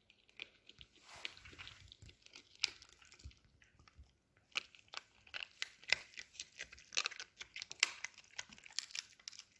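Small dog chewing a dried rabbit ear treat: irregular crunches and cracks as it gnaws, with a short pause about halfway through.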